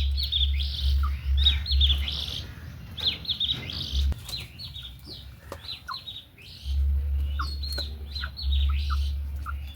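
Budgerigars chirping and chattering in quick high chirps, with a low rumble that drops away between about two and seven seconds in.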